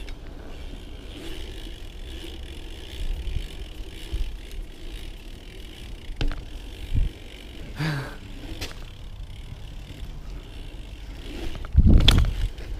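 BMX bike rolling over paving, heard through a chest-mounted camera: a steady rumble of tyres and wind with a few knocks from bumps, and a heavy thump near the end, the loudest sound.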